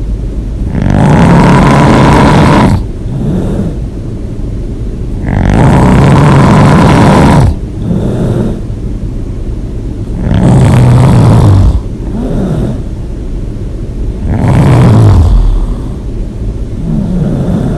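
A person snoring loudly in sleep: four long snores about every four to five seconds, with quieter breaths between them.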